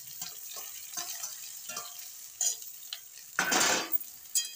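Metal spatula stirring chopped okra in a steel kadhai of hot oil, clinking and scraping against the pan over a light sizzle as the okra starts to fry. A louder half-second scrape comes about three and a half seconds in, followed by a sharp clink.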